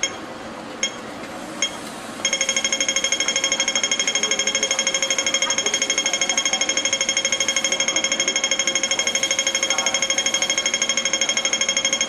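Pedestrian crossing signal at a traffic light: slow single beeps a little faster than once a second, then from about two seconds in a rapid beeping about ten a second, the signal that the walk phase has begun.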